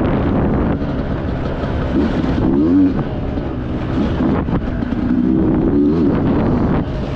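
Sherco enduro dirt bike engine running on a slow single-track ride, its revs rising and falling as the throttle is worked.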